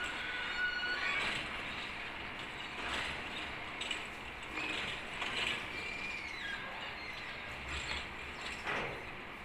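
Birds calling: a held whistled note that ends about a second in, then scattered short sharp chirps and a brief sliding note.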